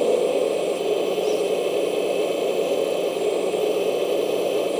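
Hydraulic pump of a Kabolite K970 1/14 RC excavator running with a steady hum while the hydraulic grab is rotated and opened.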